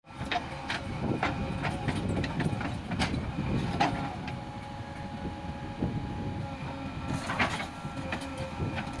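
A heavy machine's engine running with a low rumble, broken by irregular metallic clanks and knocks.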